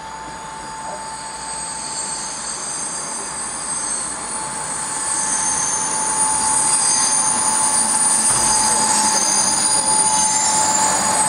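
A ZSSK class 460 electric multiple unit pulls into the station, growing steadily louder as it nears. It gives a steady mid-pitched tone and several high-pitched squeals over the rumble of its wheels.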